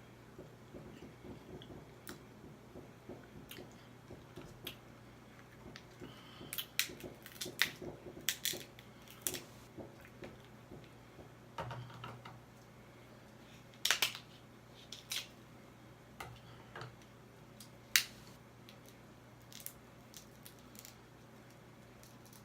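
Close-miked eating sounds: soft chewing and wet mouth noises, then a run of sharp clicks and cracks through the middle, with one loud crack late on.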